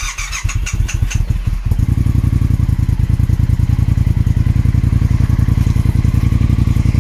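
Triumph Speed Twin's parallel-twin engine being started on the electric starter. The starter cranks for about a second and a half before the engine catches, then the engine idles steadily. It only just starts, a sign of a weak, failing battery.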